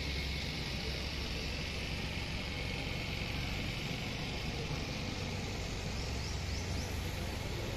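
Steady outdoor ambient noise: a low rumble under a constant high hiss, with a few faint short chirps near the end.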